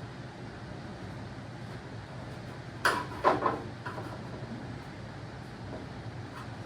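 A quick cluster of two or three sharp clunks about three seconds in, from hand work on the tractor's metal parts, over a steady low hum.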